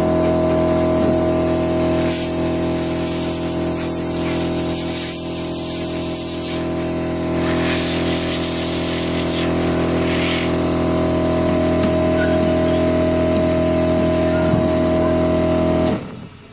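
Motor running at a steady pitch, with a rushing hiss of air that swells and fades several times over it. It is typical of de-powdering a green sandstone 3D print, where air blows loose powder off the part and suction draws it away. It starts and cuts off abruptly.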